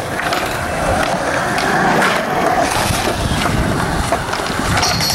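Skateboard wheels rolling on smooth concrete, a steady rumble, with several sharp clacks of the board.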